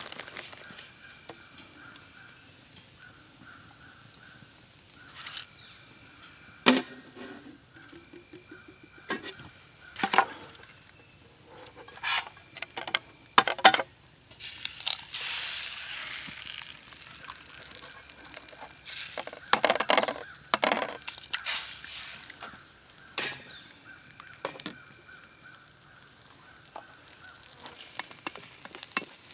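Wooden spoon and tongs clicking and scraping in a skillet over a small wood-burning stove, with sharp knocks as an egg is cracked just before the middle, then a burst of sizzling as the eggs hit the hot pan with the bacon. A faint steady high insect drone sits underneath.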